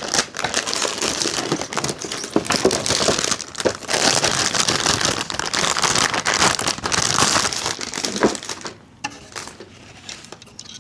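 Plastic packaging crinkling and rustling continuously as a motherboard is unwrapped, dying down about nine seconds in.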